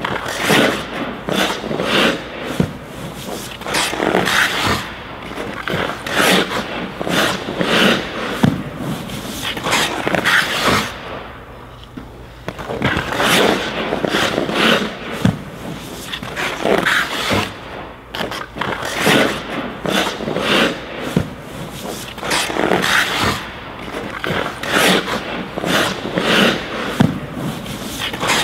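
Hockey goalie's skate blades scraping and carving the ice in repeated bursts, with knocks of the leg pads dropping onto the ice as he goes down into the butterfly and pushes back up. There is a brief lull about halfway through.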